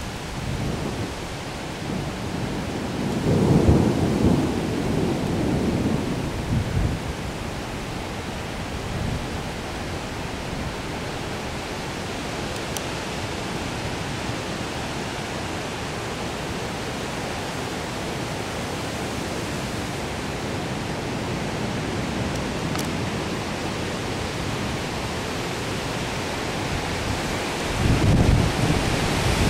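Thunder rumbling over a steady hiss of rain. A louder deep rumble swells about three seconds in and dies away over a few seconds, and another begins near the end.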